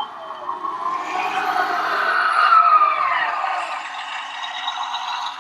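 Whine of a radio-controlled model machine's motor. It grows louder to a peak about two and a half seconds in, then falls in pitch and eases off. A short click is heard at the very start.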